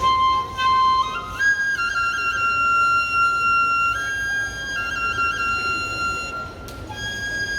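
Kagura bamboo flute playing solo: a slow high melody of long held notes, broken by quick ornamental flicks between pitches.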